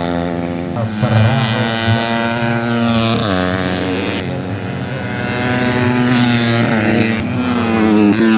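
Tuned 130 cc four-stroke underbone racing motorcycles running hard at high revs, their engine notes rising and falling as they accelerate, shift and pass.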